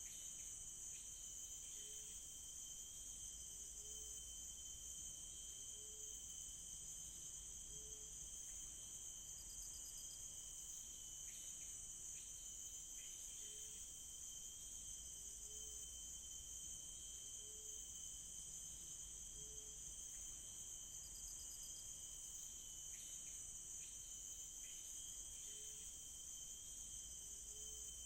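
Rainforest insect chorus of crickets: a steady high-pitched drone with a thinner continuous whine under it, and short pulsed trills coming back every ten seconds or so. A short low call repeats about every two seconds through much of it.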